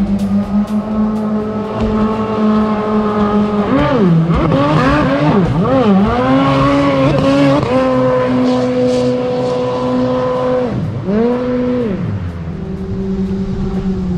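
Supercharged four-cylinder jet-ski engine of a mini jet boat running through its new exhaust. It holds steady revs, rises and falls in pitch for a few seconds, holds a higher steady pitch, then drops sharply near the end and settles at lower revs.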